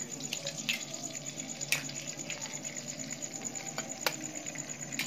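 Eggs frying in hot oil in a kadai: a steady crackling sizzle, broken by a few sharp clicks, the loudest about a second and a half in.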